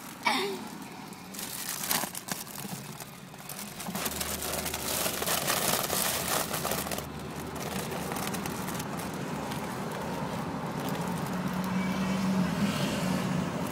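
Foil helium balloon crinkling and rustling as it is handled close to the microphone, loudest a few seconds in, over the low steady rumble of a car's interior.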